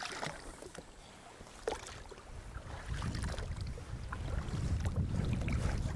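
A thrown duck decoy splashing onto the water at the start, then water moving around an inflatable rowboat, with a low rumble building over the last three seconds.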